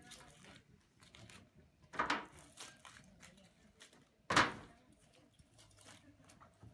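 Knife work on a roasted asado carcass on a plastic cutting board: scraping, cutting and ribs being pulled apart, with two louder sudden knocks about two and four seconds in.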